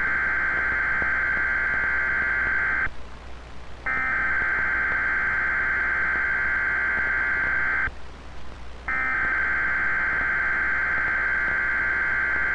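Weatheradio Canada SAME digital alert header: three bursts of buzzy, screeching data tones, each about four seconds long with about a second's pause between them. The header encodes the start of a blizzard warning alert.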